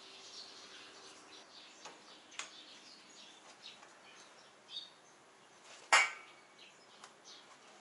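Faint, scattered bird chirps, with a light click about two seconds in and a sharp, loud knock about six seconds in. No engine is running.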